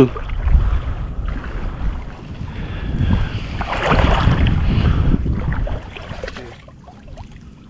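Wind rumbling on the microphone over sloshing shallow water, swelling for a few seconds in the middle and then dying down.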